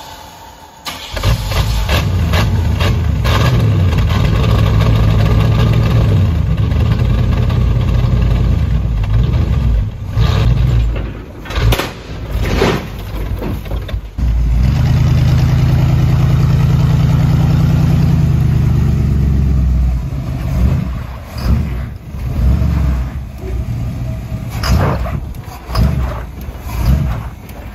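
Small-block Chevrolet V8 in a lifted Toyota pickup, running loud through glass-pack and cherry-bomb mufflers as the truck is driven out under power. It is held at high revs for several seconds at a time, twice, then revved in short surges near the end. By the owner's account it is running on stale gas with a slightly flooded carburetor.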